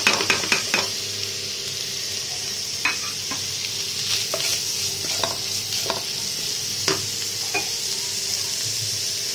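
Shredded chicken and spices sizzling in a non-stick frying pan as a spatula stirs them: a steady frying hiss, with a quick run of spatula knocks on the pan at the start and scattered single scrapes and taps after.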